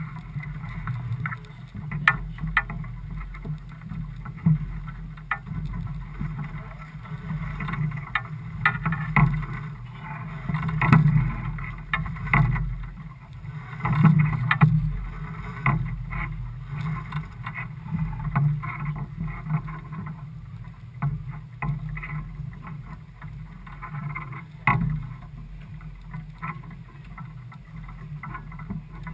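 Motor yacht on the water, its engine running with a steady low hum under a haze of wind and water noise, with frequent short knocks and rattles throughout.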